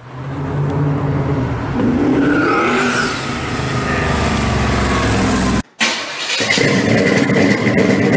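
Twin-turbo 1955 Chevy custom's engine running as the car drives by. It fades in and its pitch rises briefly about two to three seconds in. It cuts off suddenly just before six seconds, and a different steady, noisy sound with a thin high tone starts a moment later.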